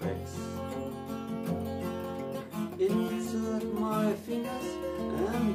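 Steel-string acoustic guitar played solo, an instrumental passage of ringing chords and melody notes.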